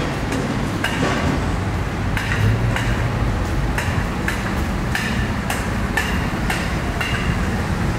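Sharp metallic clinks about twice a second, each with a brief ring, like hammer blows on metal at roadworks, over a steady low rumble of street traffic and machinery.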